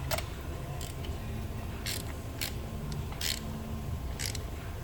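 Ratchet wrench worked in short strokes, about six brief ratcheting bursts, tightening spark plugs into the engine during a tune-up.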